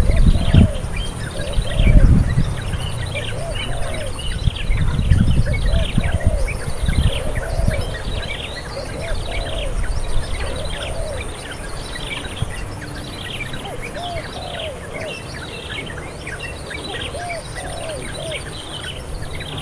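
Several wild birds calling outdoors: many quick high chirps, with a lower arched call repeated every second or so. A steady high buzz runs underneath, and there is low rumbling in the first few seconds.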